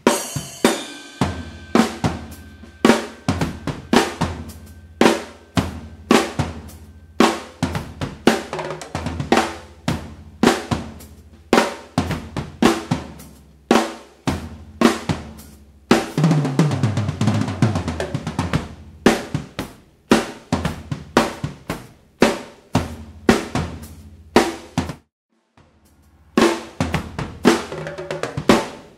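Soo Custom Drums acoustic drum kit played in a solo: snare, kick, hi-hat and cymbal strokes in a driving groove. A little past halfway comes a fast fill of rapid hits running down the toms, and near the end the playing stops for about a second before starting again.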